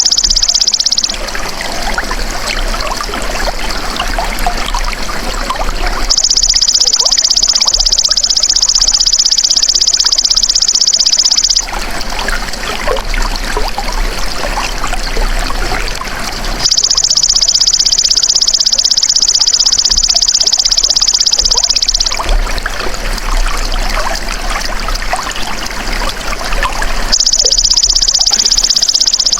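Belalang emas insect calling in a loud, steady, high-pitched buzz, in spells of about five seconds that alternate evenly with spells of trickling water.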